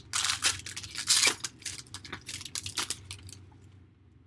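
Foil wrapper of a trading-card pack being torn open and crinkled, with the cards slid out. The tearing is loudest in the first second and a half, then thins to lighter rustling and dies away about three seconds in.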